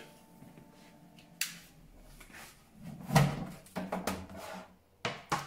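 Clear plastic drying cabinet being opened and handled: a sharp click about a second and a half in, then a run of plastic knocks and clicks.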